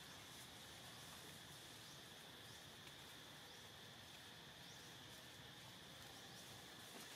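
Near silence: faint outdoor ambience with a steady, high-pitched insect drone.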